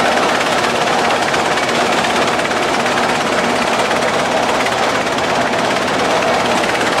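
Large antique gas tractor engine running steadily under load while pulling a multi-bottom gang plow.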